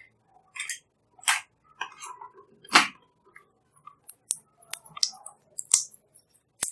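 Fluffy slime being squeezed and worked by hand, giving irregular sharp pops and crackles from air pockets with short wet squishes between them.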